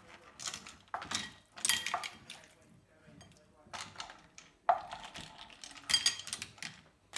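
Cooked cockle shells clinking and clattering as a wooden spoon scoops them from a frying pan into a ceramic bowl, in about six short bursts.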